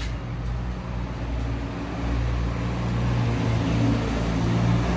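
A motor vehicle engine running nearby, a steady low hum that grows louder about two seconds in.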